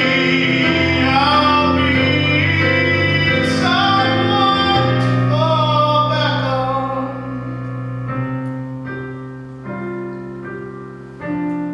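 A male singer holds sung notes with vibrato over keyboard accompaniment. The voice stops about seven seconds in, leaving the keyboard playing piano chords alone, each chord struck separately.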